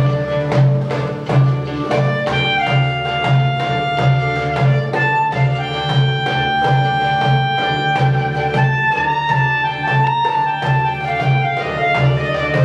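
Middle Eastern folk ensemble playing a Sephardic song, with violins, ouds and clarinet carrying long held melody notes over a steady pulsing beat.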